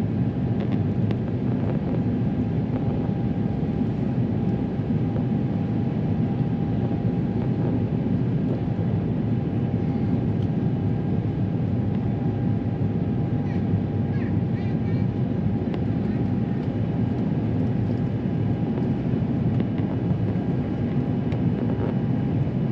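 Steady cabin rumble inside an Airbus A350-900 airliner: engine and airflow noise from its Rolls-Royce Trent XWB engines, even in level, with a faint steady whine above it.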